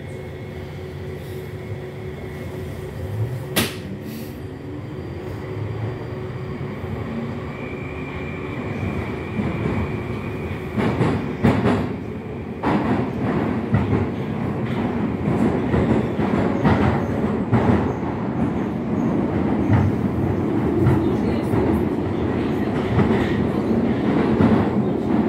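Moskva-2020 metro train pulling away and gathering speed, heard from inside the car. The traction drive's whine rises in pitch, and the running rumble grows louder with repeated clacks from the wheels over the track.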